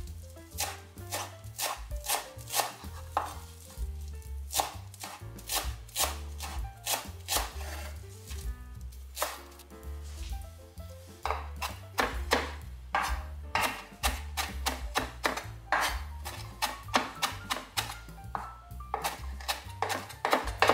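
Chef's knife finely chopping fresh parsley on a wooden cutting board: quick, uneven runs of sharp knocks as the blade hits the board, a few a second, with a brief lull near the middle while the pile is gathered.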